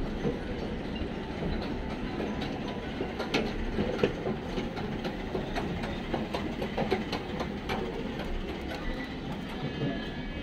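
Escalator running: a steady mechanical rumble with irregular clicks and rattles from the moving steps, busiest in the middle.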